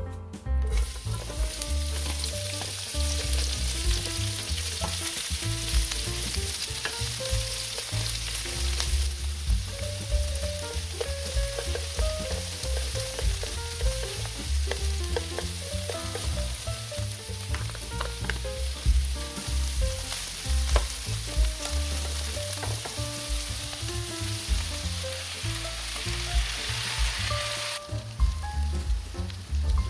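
Oil sizzling in a nonstick frying pan as shredded cabbage and beaten egg fry into a cabbage pancake, with chopsticks clicking and scraping as the cabbage is spread. The sizzle thins about nine seconds in and grows brighter again near the end.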